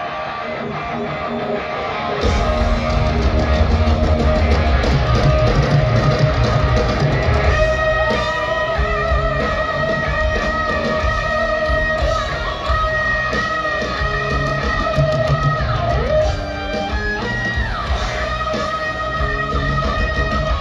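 Live hard rock band played through an arena PA and recorded from the crowd. The full band of electric guitars, bass and drums comes in loud about two seconds in. Long held high notes ride on top from about seven seconds in.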